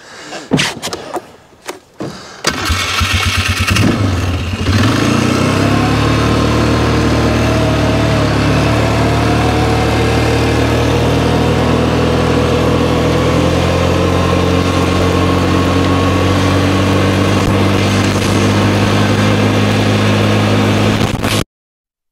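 Four-wheeler (ATV) engine started about two and a half seconds in, after a few knocks, then running steadily, with a rising engine note as it pulls away. The sound cuts off suddenly near the end.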